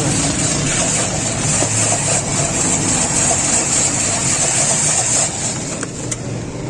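Motorised ice-shaving machine running, its blade scraping a block of ice into fine shavings with a steady hiss over a low motor hum. The shaving noise stops about five seconds in.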